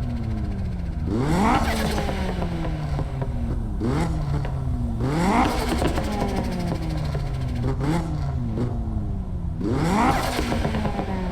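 Turbocharged 2004 Acura RSX Type-S's four-cylinder engine revved in three sharp blips and a few smaller ones, the revs sliding slowly back down after each. As the throttle snaps shut, the turbo flutters with its 'stutututu' compressor surge.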